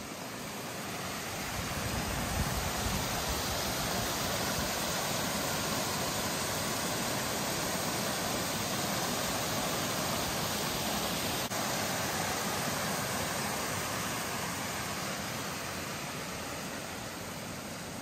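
Rushing stream water, a steady full rush that swells about two seconds in, holds, and eases off near the end.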